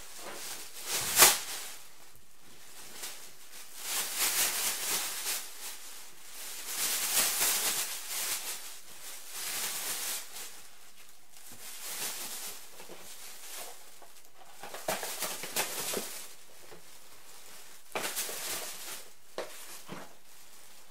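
Thin plastic grocery bag rustling and crinkling in repeated bursts as items are taken out of it, with one sharp knock about a second in.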